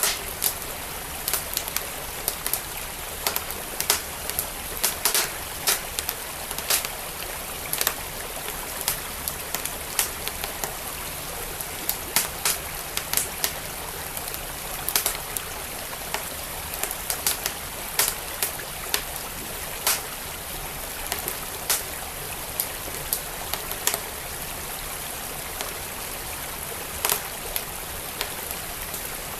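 Wood fire crackling with irregular sharp pops over the steady rush of a flowing creek.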